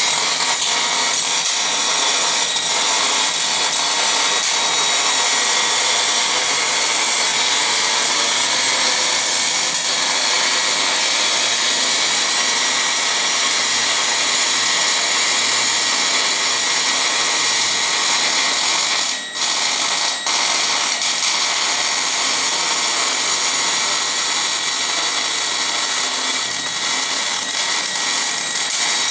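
MIG welding arc crackling and hissing steadily as a bore-welding machine's rotating torch lays weld around the inside of a cast-iron bore. The sound drops out briefly twice, about a second apart, a little past two-thirds of the way through.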